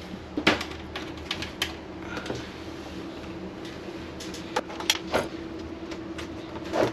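Scattered light clicks and knocks of a metal vanity light fixture being handled and pressed onto its wall mounting plate, over a faint steady hum.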